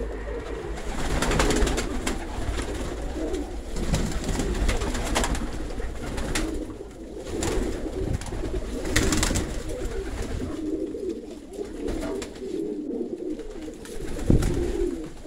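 Many domestic pigeons cooing together, a steady overlapping cooing, with a few short sharp clatters scattered through it.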